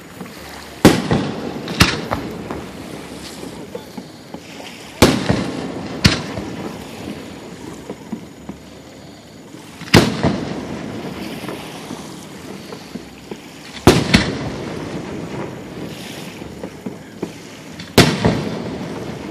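Aerial fireworks bursting: about seven loud sharp bangs every few seconds, some in quick pairs, each trailing off in a rumble.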